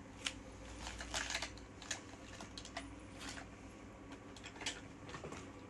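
Small hard plastic toy fish clicking and clattering against each other and a plastic bucket as they are handled: a run of light, irregular taps.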